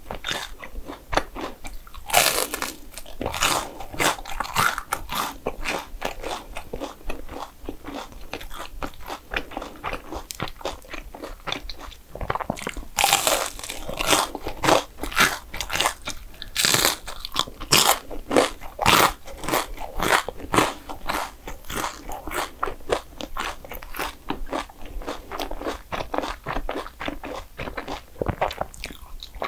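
A person eating dessert close to the microphone: bites and chewing, with dense small sharp crunching clicks and a few louder bites every several seconds.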